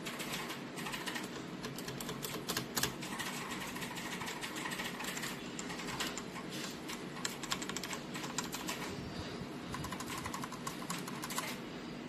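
Keys of an EGA Type CMK1 mechanical keyboard being typed on: a quick, irregular run of key clicks.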